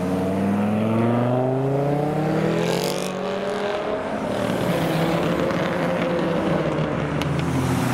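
Dodge Viper GTS's V10 accelerating away, its pitch rising steadily for about three seconds, then a second car's engine running past at a steadier pitch.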